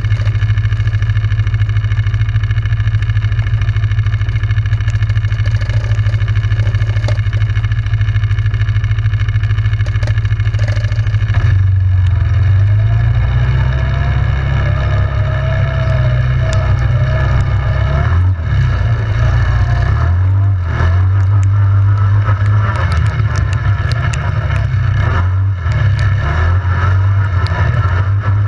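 ATV engine running under way, holding a steady note for the first part, then rising and falling as the throttle is worked.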